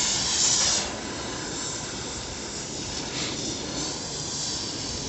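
Gas cutting torch hissing as it cuts through the steel body of a scrapped trolleybus, with a loud blast of hiss in the first second and a shorter one a little after three seconds in.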